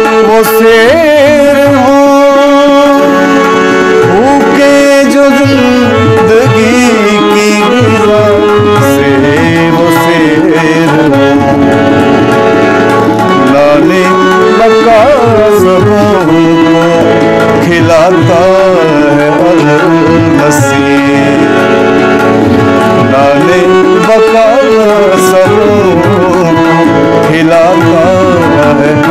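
Music: a South Asian–style song with tabla drumming and a singing voice over steadily held accompanying notes.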